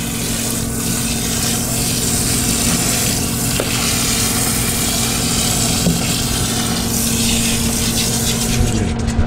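Recirculating dog-bathing system running: a steady pump hum under the hiss of soapy water sprayed from a hand-held nozzle into a dog's wet coat.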